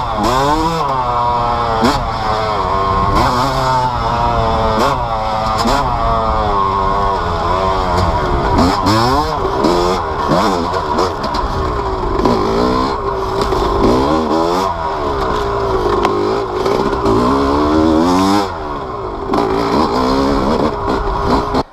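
Yamaha YZ250 two-stroke single-cylinder dirt bike engine, fitted with BeRad's Freight Train kit, revving up and down over and over under throttle while being ridden on a trail.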